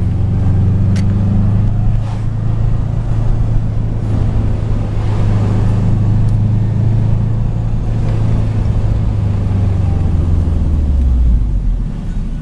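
Car engine and tyre noise heard from inside the cabin while driving, a steady low drone. Near the end it drops in pitch and gets quieter as the car slows.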